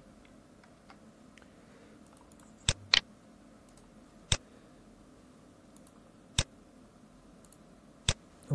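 Computer mouse clicking: five sharp single clicks, two of them close together a little under three seconds in, then three spaced about two seconds apart, over a faint steady hum.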